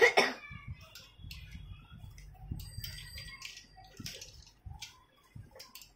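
Sharp click, then scattered small clicks and rustles of wires, plastic connectors and metal parts being handled inside a disassembled laser printer. A brief high tone sounds about three seconds in.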